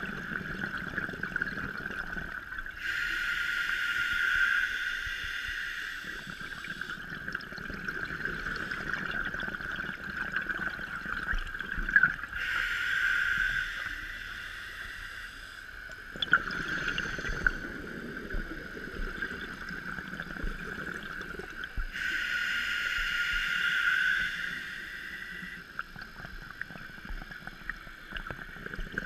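Scuba diver breathing through a regulator, heard underwater: three long exhalations of rushing bubbles about ten seconds apart, with quieter inhalations between them. A steady high whine runs underneath.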